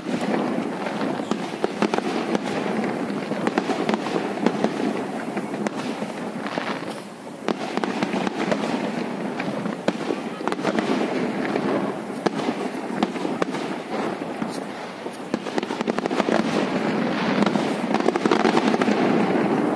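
Fireworks display: shells bursting in quick succession, a dense stream of bangs and crackling pops with no let-up, loudest near the end.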